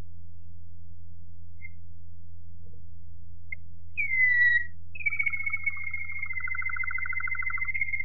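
Waterslager Malinois canary singing: a short falling whistle about halfway, then a long held whistle-like note, with a fast trill sounding beneath it for a few seconds. A steady low hum runs underneath.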